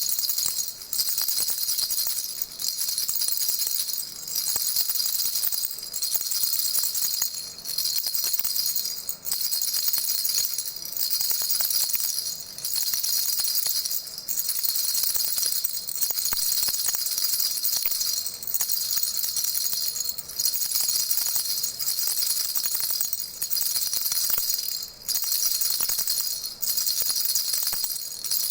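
Baby rattle shaken steadily, giving a high jingling rattle with brief breaks every second or two.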